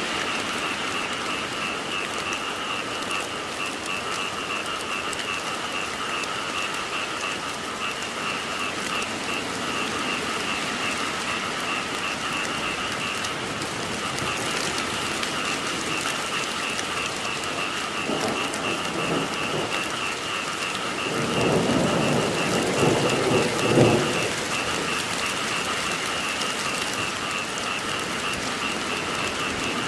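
Steady rain falling, with a frog chorus calling in a continuous pulsing trill throughout. A low roll of thunder builds about two-thirds of the way through and is the loudest moment.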